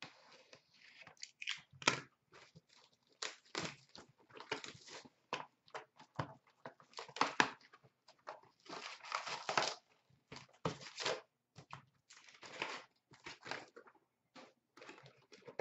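Hands tearing open a box of hockey card packs and unwrapping a pack: irregular crinkling and tearing of the wrapper, with cardboard and cards rustling as they are handled.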